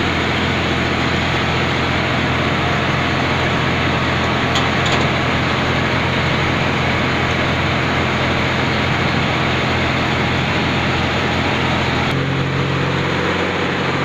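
Kinnow orange waxing and grading machine running: a loud, steady mechanical noise of its motors and rotating brush rollers, with a constant low hum. About twelve seconds in the hum shifts a little as another part of the packing line comes nearer.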